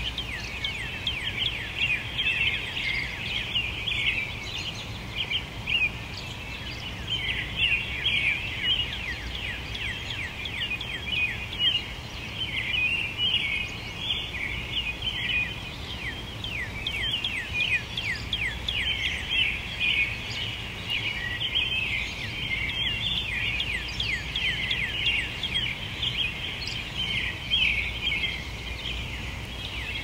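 Dawn chorus of many songbirds chirping at once: a dense, unbroken layer of short, falling, high chirps overlapping one another.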